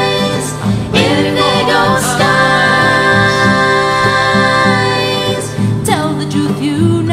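Song passage of one woman's voice overdubbed in layers, holding long choir-like notes, over acoustic guitar with a few strums.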